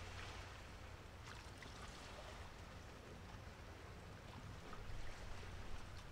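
Outdoor rain ambience: an even hiss of light rain with a few scattered drops ticking, over a steady low rumble.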